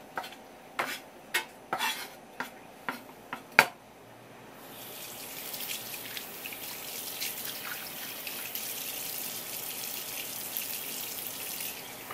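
A quick series of sharp knocks on a wooden cutting board, the last the loudest. Then tap water runs with a steady hiss for several seconds while the wet board is wiped down, cutting off near the end.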